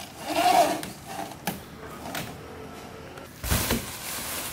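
Handling noises of fishing rods being packed into a bass boat's rod locker: light knocks and a click. About three and a half seconds in comes a sudden louder thump, followed by the crinkling of a plastic bag.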